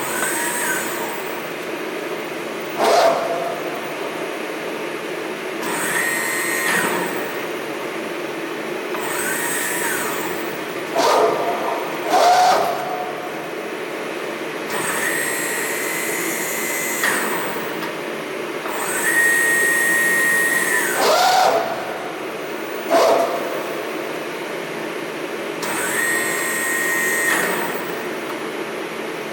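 Safan SMK servo press brake running, its servo drives giving a high whine in repeated spells of one to two seconds as the machine moves, over a steady hum. Several sharp clicks or knocks fall between the spells.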